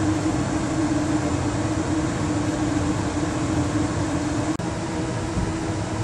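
Carrier Weathermaker 8000 gas furnace's blower running with a steady air rush and hum while the burners stay unlit. This is the blower-runs-but-no-ignition fault that the furnace flags as error code 33, an open limit or flame rollout switch.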